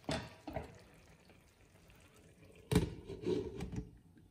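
A few sudden knocks of cookware in a home kitchen. The loudest comes nearly three seconds in and trails off over about a second.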